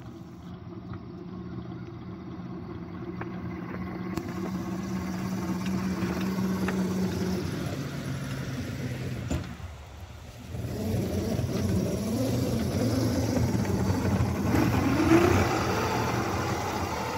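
Miniature ride-on locomotive running under throttle while pulling a plow car along the track: a steady, low mechanical hum that grows louder, drops away briefly about ten seconds in, then comes back louder with a short rising whine near the end.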